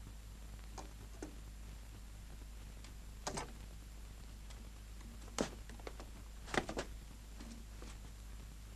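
A few short, faint knocks and clicks from someone moving about and handling things, the sharpest about five and a half and six and a half seconds in, over a steady low hum.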